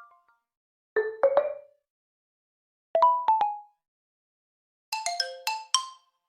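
Honor MagicOS 9 phone system sound effects played one after another: three separate short chimes of a few quick plucked notes each, about two seconds apart, the last higher and with more notes.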